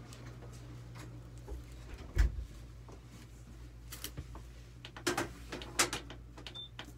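Steady low electrical hum with scattered knocks and clicks from handling at an X-ray table; a loud thump about two seconds in, a few sharper clicks later, and a brief high beep near the end.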